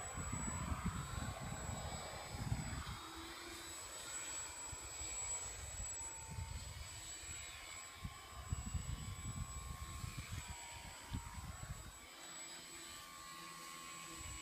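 Radio-controlled model Sukhoi plane in flight: a faint motor-and-propeller whine that rises and falls in pitch as it manoeuvres, with wind gusting on the microphone.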